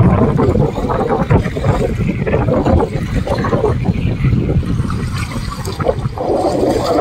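Wind rumbling on a phone microphone over choppy, wind-driven reservoir water, with small waves lapping and splashing. It is loudest in the first second, then a little lower and uneven.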